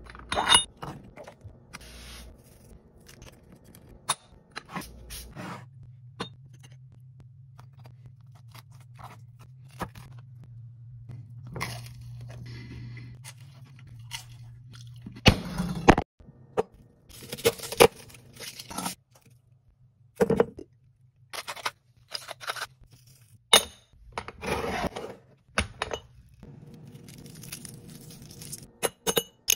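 A string of short kitchen handling sounds: a lid knocking on a small lidded pot, scrapes and knocks on a wooden cutting board, and a crunchy bite of toast about halfway through. A steady low hum runs under it for several seconds in the first half.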